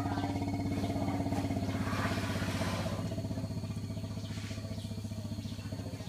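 Asian elephants rumbling: a steady low, pulsing drone that slowly fades in the second half.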